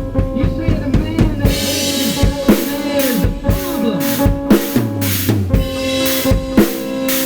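Gretsch and Ludwig drum kit played in a fast improvisation: dense bass drum, snare and tom strokes, with Paiste cymbal crashes ringing out about a second and a half in and again about two-thirds of the way through. A steady droning tone sounds underneath.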